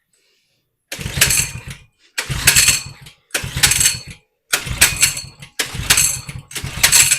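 A 100cc Coleman minibike's single-cylinder engine being pull-started by its recoil starter, six pulls in quick succession about once a second. It turns over with each pull but does not catch, even when primed with brake cleaner.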